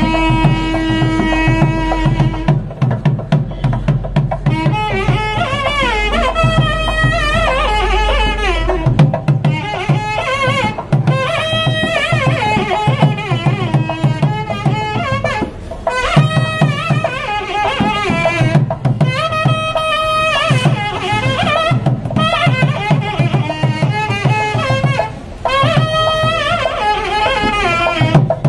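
Traditional South Indian temple music: a wind instrument's melody over a steady drum beat.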